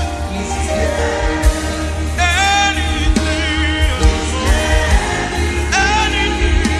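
Live gospel worship music: a singer's voice curving through sung runs twice, over band accompaniment with a steady low bass.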